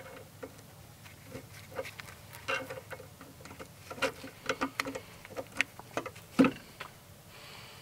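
A gloved hand working a nut on a threaded ball joint stud: a run of irregular small metal clicks and knocks, with one heavier knock about six and a half seconds in.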